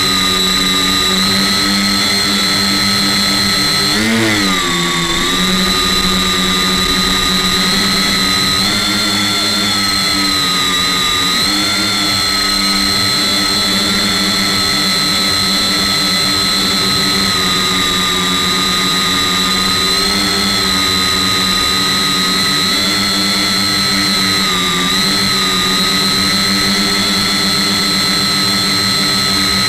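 Electric tricopter's motors and propellers whining steadily, heard through its onboard camera. The pitch dips and comes back about four seconds in, and again briefly later, as the motor speed changes.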